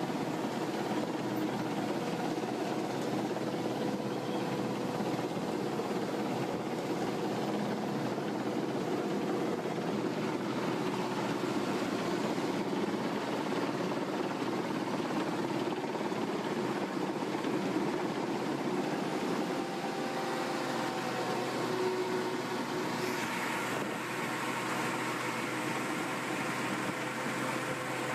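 A machine running steadily: an even mechanical noise with a constant hum, a higher hiss joining in near the end.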